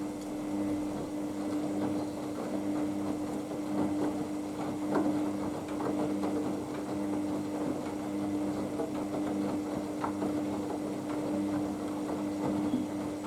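Haier HWD 120 washer-dryer in the main wash of its 15-minute express programme: the drum motor hums steadily while the wet laundry sloshes and tumbles, with scattered small knocks.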